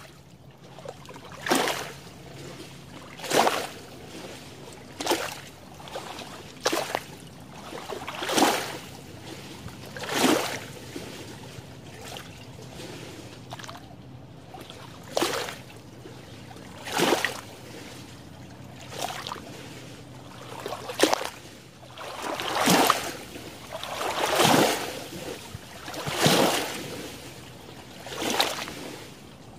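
Small waves lapping and splashing against a lake shore among reeds, one slap about every two seconds, with a short lull partway through.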